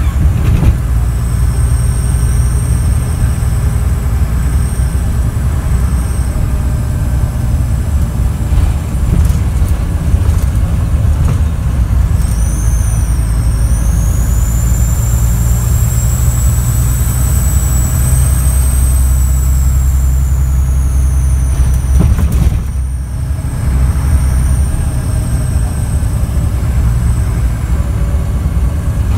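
Scania DC9 inline-six diesel of a bus with a leaking turbocharger, heard from inside the bus as it drives. It gives a loud, high-pitched turbo whistle over a heavy engine drone. The whistle rises in pitch a little before halfway, then sinks again. About three-quarters of the way through, the engine briefly eases with a short drop in level, then the drone and whistle pick up again.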